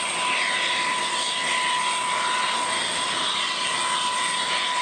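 Antonov An-225's turbines running steadily on the ground: an even rushing hiss with a constant high whine.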